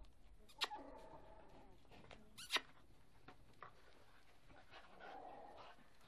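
Andalusian podenco dogs: two short, sharp yelps about two seconds apart, the first trailing into a brief whine, then a softer whimper about five seconds in.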